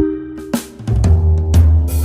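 Background music: pitched mallet-like notes over a drum beat, with a heavy bass coming in about halfway through.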